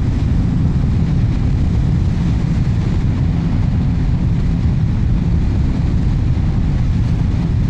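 Royal Enfield Classic 350 single-cylinder engine running steadily under way at road speed, heard through a microphone inside the rider's helmet along with wind noise.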